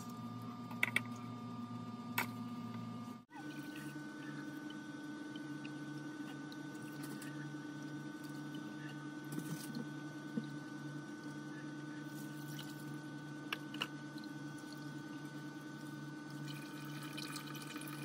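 Grated coconut squeezed by hand and the coconut milk poured through a plastic strainer into a pot, with faint dripping and pouring over a steady background hum and a few light clicks of bowls.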